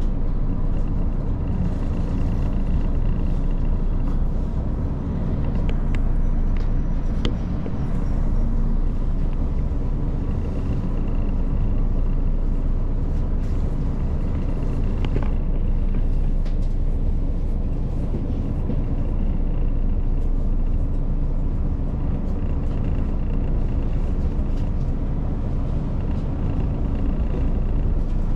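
Diesel railcar running along the line: a steady rumble of engine and wheels on rails, with a faint high whine that comes and goes and a few light clicks.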